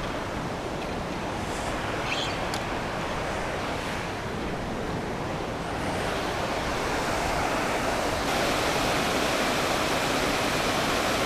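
Steady rush of river water pouring over and between rocks, louder from about the middle on.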